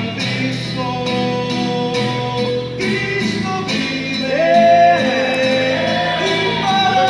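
A man singing a Spanish-language gospel song to a strummed acoustic guitar. A little past the middle he holds a long note with vibrato, the loudest moment.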